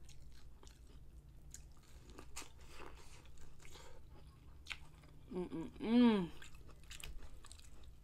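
Close-up biting and chewing of corn on the cob, with scattered small crunches of the kernels. About six seconds in there is a short hummed voice sound that rises and falls in pitch.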